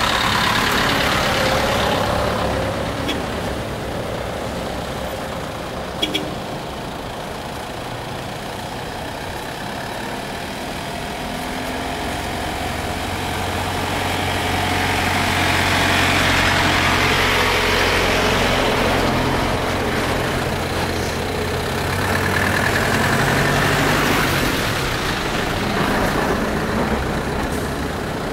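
Diesel school buses driving slowly past one after another, their engines swelling as each comes close, with loud passes near the start, about halfway and again near the end. A short sharp click about six seconds in.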